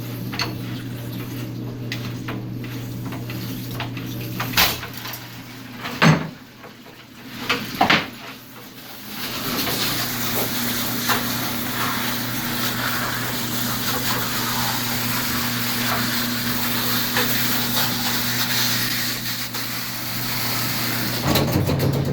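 A few sharp metal knocks as the lower element of an electric water heater is worked loose. Then, about nine seconds in, a steady rush of water spraying out of the open element port under mains pressure, because the water supply was never shut off.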